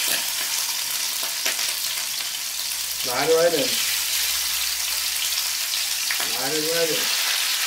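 Salmon fillets sizzling in hot oil and butter in a skillet as they are laid into the pan one by one: a steady frying hiss.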